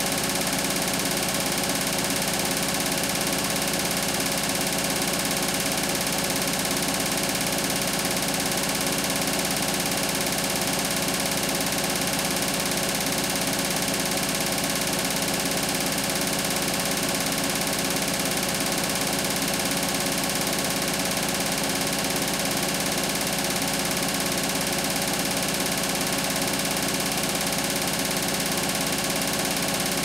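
Beko WTK104121W washing machine running steadily: a constant mechanical hum with several fixed tones and no change in level.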